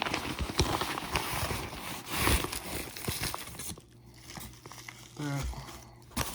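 Plastic packaging crinkling and rustling with small clicks as a package is handled and unwrapped. It drops off about four seconds in, and a brief rising tone follows about a second later.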